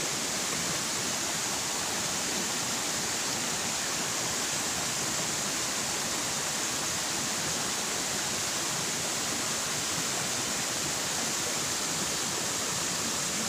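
Shallow, rocky river flowing fast over stones: a steady rushing of water.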